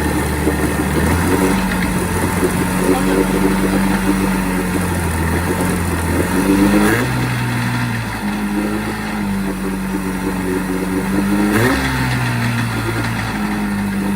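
A 1984 Johnson 25 HP two-stroke outboard motor running after a carburetor rebuild, its engine speed shifting up and down several times.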